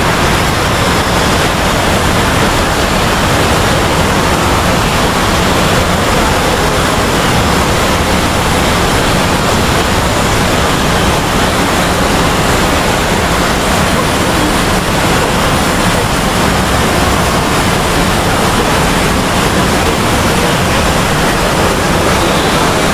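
Dozens of video soundtracks, from cartoon clips, intros and screen recordings, playing at once and blending into a loud, steady wall of noise in which no single voice or tune stands out.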